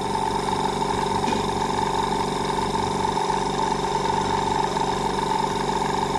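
Spray gun and its air compressor running, a steady machine hum with a fine hiss, as green colour is sprayed onto green-apple desserts.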